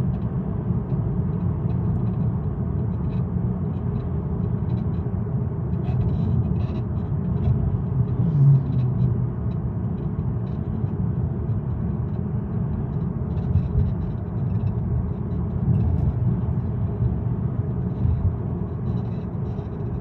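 Mercedes-Benz CLA 200 d diesel car driving with a steady low rumble and faint, scattered light clicks on top. The rumble swells briefly about eight seconds in. This is the noise the owner is recording while driving.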